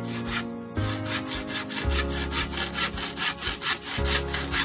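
Hand saw cutting through a bamboo pole in quick back-and-forth strokes, each stroke a rasping scrape, over background music.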